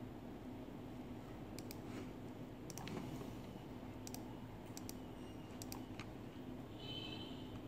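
Faint scattered clicks over a steady low hum, with a short high tone lasting about half a second near the end.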